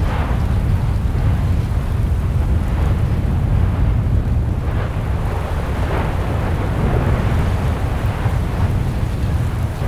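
Erupting volcano's lava fountain: a deep, steady rumble with a few brief louder bursts now and then.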